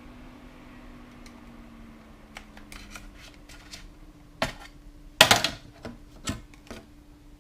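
Clicks and taps of small hardware being handled while a laptop is worked on. There is a sharp knock about four and a half seconds in, a louder clatter just after five seconds and another knock a second later, with a steady low hum underneath.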